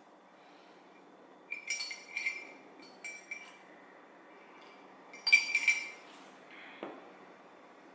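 Ceramic mug clinking in short clusters of ringing clinks, the loudest a little past five seconds in, then a soft knock near the end as it is set down on a table.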